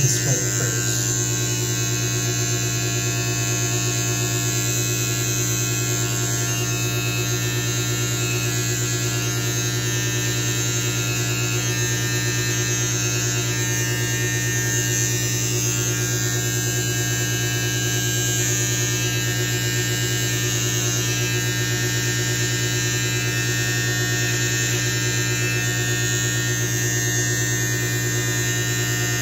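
Electric beard trimmer running and being worked over the beard and neck, a steady, unbroken buzz.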